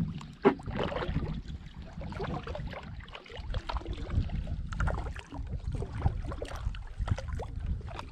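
Kayak on the water under paddle, with irregular splashes and small knocks from the paddle over a steady low rumble.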